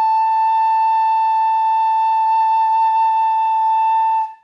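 Bamboo pífano (Brazilian transverse fife) holding one long, steady note, a long-tone exercise for finding the instrument's sound, played with only the index finger down; the note stops cleanly near the end.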